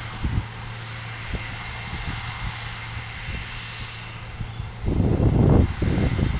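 Artec F40 self-propelled sprayer's engine running steadily as the machine drives across the field, with a burst of wind noise on the microphone about five seconds in.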